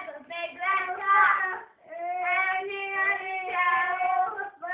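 Small children singing in high voices: a few short sung phrases, a brief break, then long drawn-out notes.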